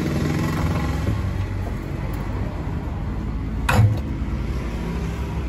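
A single sharp metal clunk about four seconds in, as the engine block is shifted into position by hand under the van, over a steady low rumble.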